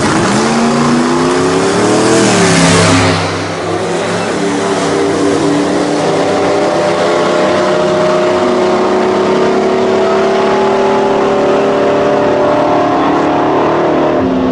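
Two drag-racing pickup trucks launching at full throttle: the engines rev up steeply, drop in pitch as they change gear about two seconds in, then pull on down the strip with a long, slowly rising engine note.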